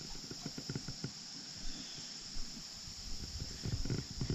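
A steady high-pitched chorus of crickets, with soft low clicks and rustles of handling close by that grow busier near the end.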